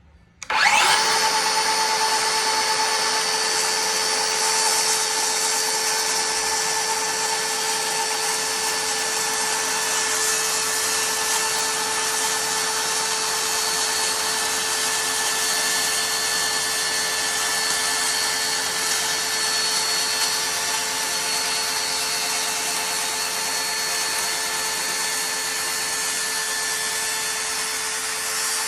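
DeWalt 60V FlexVolt worm-drive-style circular saw with a 60-tooth blade, spinning up about half a second in and then running steadily as it cuts a half-inch strip off the bottom of a door.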